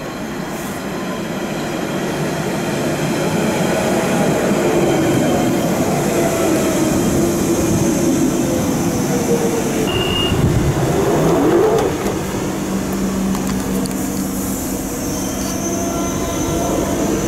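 London Underground 1992 tube stock train running into the platform and slowing: its running noise builds over the first few seconds, then a falling whine as it brakes, and steady hums from the train near the end.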